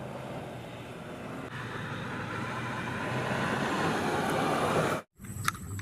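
Steady vehicle-engine rumble with a hiss, slowly growing louder, then cutting off suddenly near the end.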